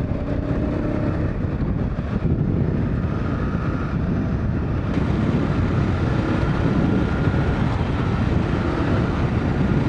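Dual-sport motorcycle riding under way, engine running with a steady low rumble of wind and road noise on the rider's microphone; a faint steady whine comes in about three seconds in.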